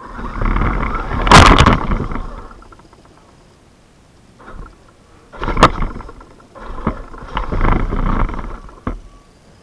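Small classroom robot's electric drive motors and gears running in a few separate bursts as it drives, with sharp metallic clacks, the loudest about a second in and another midway, and a last click near the end.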